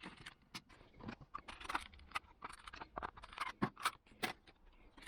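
Small steel screwdriver bits and tool parts being handled, clinking and scraping in many light, irregular taps.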